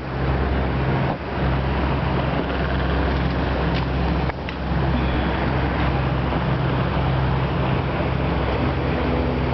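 Small open motorboat's engine running at a steady speed, a low drone under an even hiss of water and air as the boat moves along. The sound dips briefly about a second in and again about four seconds in.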